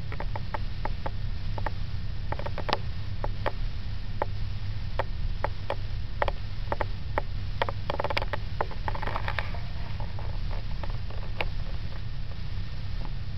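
A run of sharp clicks and taps, several a second at first and then more scattered, over a steady low hum.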